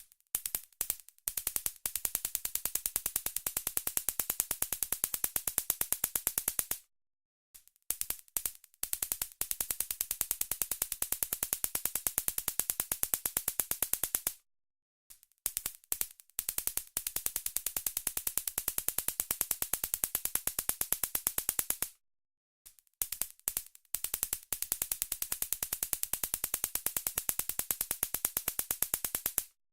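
Handheld stun gun being triggered: a few short zaps, then about five seconds of rapid, continuous electric crackling as the arc snaps between its electrodes. The pattern repeats four times with brief silences between.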